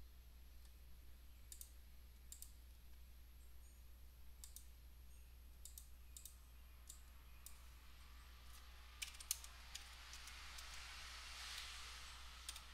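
Faint, scattered computer mouse clicks and a few keystrokes, a little louder around nine seconds in, over a low steady hum.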